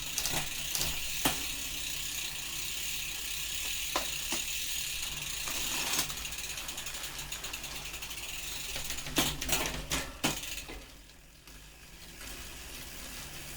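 Road bike drivetrain with a new Shimano Dura-Ace 11-speed chain turning over the cassette as the cranks are spun in a work stand, with sharp clicks as the derailleurs shift through the gears. The shifts go through cleanly, a check that the new chain is fitted right. The drivetrain goes quieter about eleven seconds in.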